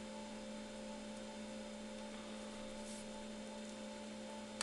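Quiet room tone: a steady electrical hum with a few faint steady higher tones over light hiss.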